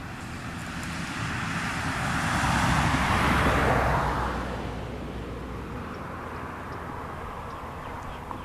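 A vehicle passing by, its sound building to its loudest about three to four seconds in and then fading away.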